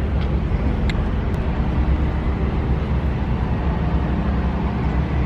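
Vehicle engine running with a steady low rumble, with a couple of faint clicks about a second in.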